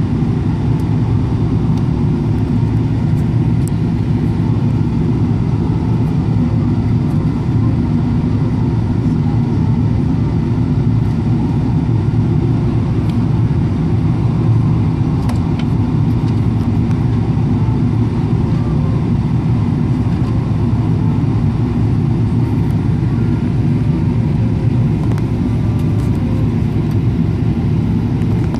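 Steady low cabin drone inside a Boeing 777-300ER airliner in flight, heard at a window seat over the wing. It is an even rumble of engines and airflow with no change in pitch or level.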